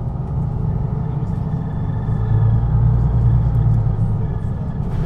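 MAN NG 313 articulated bus's diesel engine running with a low drone. The drone grows louder about two seconds in and eases off again near the end, as when the bus pulls away under power.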